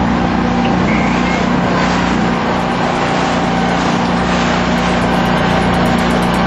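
Boat engine running steadily: a constant low hum over a wash of wind and water noise.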